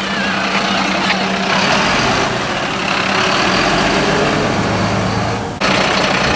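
Mercedes-Benz fire engine's diesel engine running with a steady low hum, with a sudden jump in loudness near the end.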